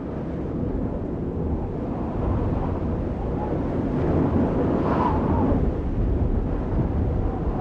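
Steady low rumble of crowd noise in a large hall, with faint voices about five seconds in and again near the end.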